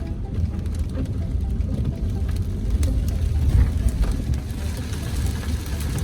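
Car driving, heard from inside the cabin: a steady low road and engine rumble with scattered light ticks of rain on the car.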